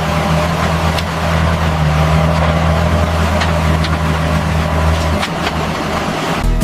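Engine running steadily, a low hum over a noisy rumble with a few light clicks; the deepest part of the hum drops out about five seconds in.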